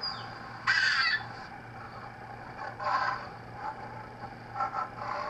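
Short, high-pitched dog yips and whines. The loudest comes about a second in and fainter ones follow near three and five seconds, over a steady low hum.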